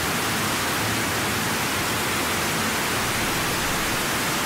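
Steady, even hiss with no distinct events, like loud rushing noise across the whole range.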